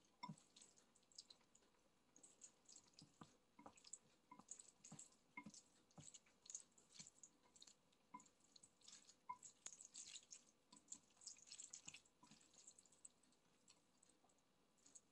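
Faint, irregular wet squishes and small clicks of eating sauce-coated noodles: chewing, and chopsticks stirring and lifting the noodles in a bowl.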